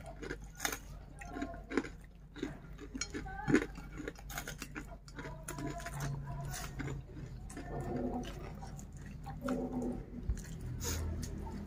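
A man eating with his fingers: chewing and smacking with many small sharp mouth clicks, and light crunching of fried crumbs.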